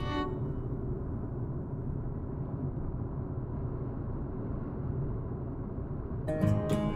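Steady low rumble of a car driving on the road, tyre and engine noise heard from inside the cabin. Guitar music comes in near the end.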